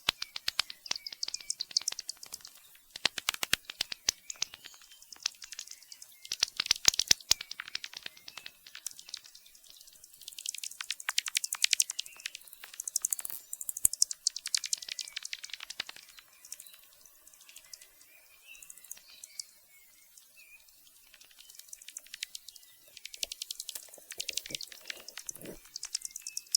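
Bats squeaking and chittering: rapid trains of high-pitched clicks and squeaks in repeated bursts, with a quieter stretch about two-thirds of the way through.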